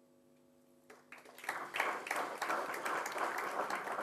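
Audience applauding: many hands clapping, starting about a second in and swelling quickly into full applause over a faint steady electrical hum.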